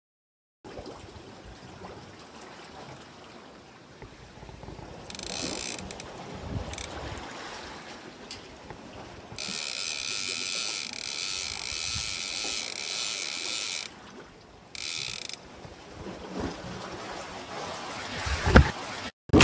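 Fishing reel being wound, a fast mechanical clicking whirr that comes in two longer spells. A sharp knock sounds near the end.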